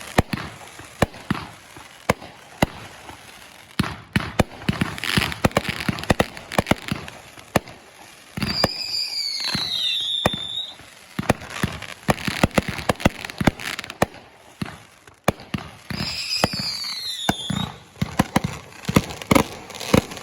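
Fireworks going off in rapid, irregular pops and crackles. Twice, about 8 seconds in and again about 16 seconds in, a whistle falls in pitch for a second or two.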